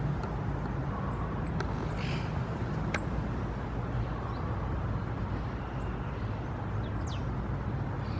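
A few short, high bird chirps over a steady low rumble like distant traffic, with one quick falling whistle about seven seconds in.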